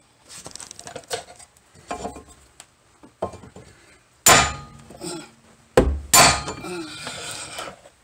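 Heavy hammer striking a brass drift set on the stud nut of a Corvette front suspension joint, trying to knock the joint's taper loose. A few lighter blows come first, then two hard, ringing metal strikes about halfway through, a second and a half apart.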